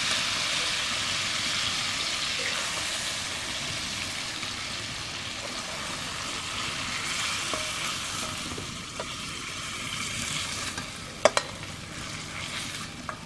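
Hot mustard oil sizzling steadily in a kadai, the hiss slowly fading. Two sharp clicks come near the end.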